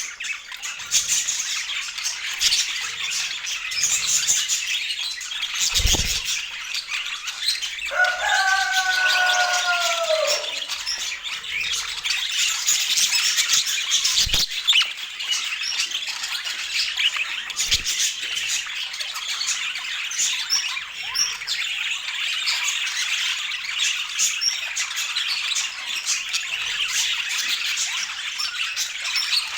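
Many small birds chirping and chattering continuously in a dense, high-pitched chorus. About eight seconds in, a louder, lower call bends downward over about two seconds. A few dull thumps occur at scattered moments.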